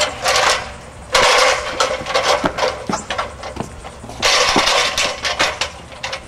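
Aluminium extension ladder rattling and clanking as it is lifted, carried and set against a wall, with two long stretches of rattling and several sharp knocks of the rungs and rails in between.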